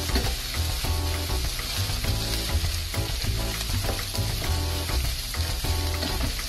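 Chicken pieces and onions sizzling as they fry in a nonstick pan, stirred with a wooden spatula so they brown on all sides. Background music runs underneath.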